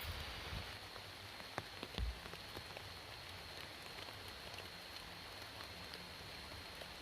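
Steady rain falling, with scattered drop ticks and a brief low thump about two seconds in, over a faint steady high-pitched tone.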